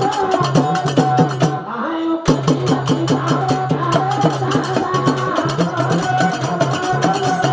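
Live Banjara devotional song: a male voice singing over hand drum and jingling percussion that keep a fast, even beat. The percussion drops out for about half a second just before two seconds in, then comes back.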